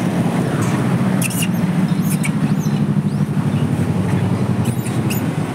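Steady low rumble of road traffic, with a few short, high, squeaky chirps about a second in, around two seconds in, and near the end.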